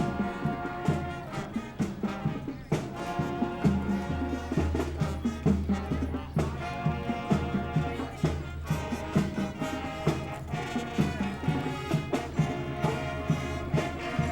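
A marching band playing, brass instruments carrying the tune over a steady drum beat.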